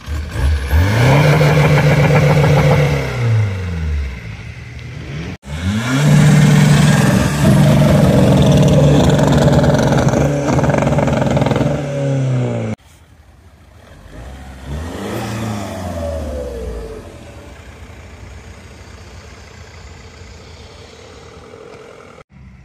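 Car engines revved hard in several short clips. A Mk1 SEAT Leon's engine climbs, holds and falls away. Then a diesel saloon is held at high revs for several seconds while blowing black smoke, cut off suddenly. After that comes a quieter, shorter rev and steady running.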